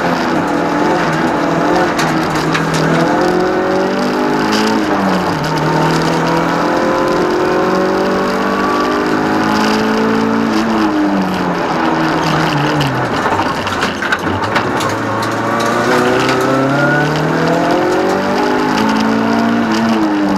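Toyota Starlet EP82's engine heard from inside the cabin under hard driving, revving up and dropping back in pitch again and again through gear changes, with longer falls as it slows for bends. Road and tyre noise fills the background.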